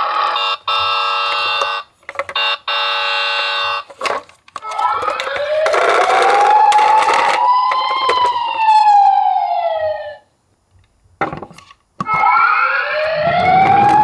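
Toy ambulance's electronic siren, set off by the roof buttons. A steady electronic tone cuts out and back in several times with button clicks, then a slow wail rises and falls and stops about ten seconds in. After a single click, the wail starts rising again near the end.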